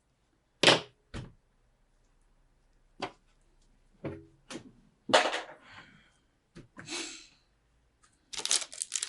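Computer parts being handled on a workbench: a series of separate sharp clicks and knocks, the loudest about a second in, running into a denser clatter near the end.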